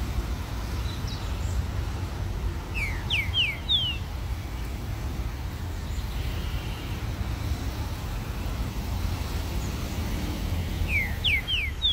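Green-winged saltator (trinca-ferro) singing two short phrases, each of four quick whistled notes sliding downward, one about three seconds in and the other near the end, over a steady low background rumble.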